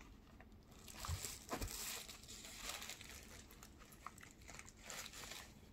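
Rustling and crinkling as a leather backpack is handled, with its white tissue packing paper crumpling, and a few soft knocks at about one to two seconds.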